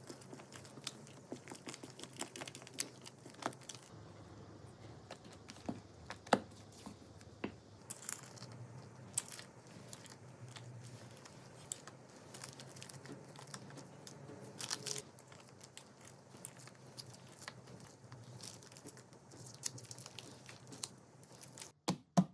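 Plastic piping bag crinkling and rustling as cake batter is squeezed into paper cupcake liners in a muffin tin, with scattered light clicks and taps over a faint low hum, and a couple of sharper knocks near the end. Sped up to double speed.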